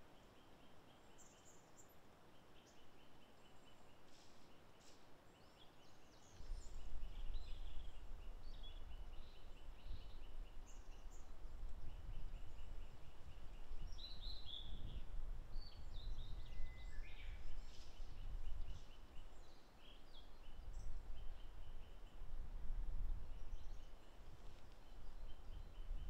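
Blue-and-white flycatcher and other forest birds: scattered chirps and short whistled notes, loudest about halfway through, over a faint, evenly repeated trill. A low rumble sets in suddenly about six seconds in.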